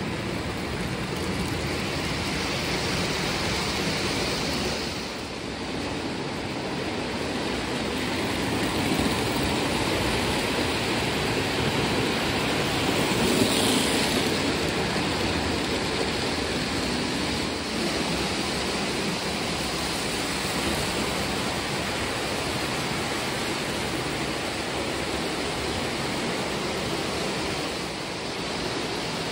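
Lionel O-gauge model trains running on tubular three-rail track: a steady rumble of wheels and motors, louder about halfway through as a Crescent Limited passenger train passes close by.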